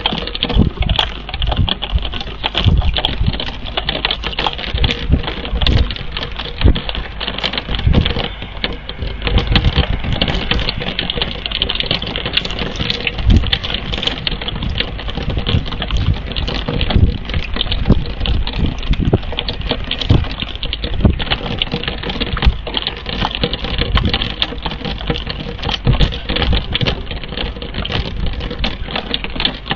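Rain falling on and around the nest-cam microphone: a dense, irregular run of sharp drop taps over a steady hiss of rain.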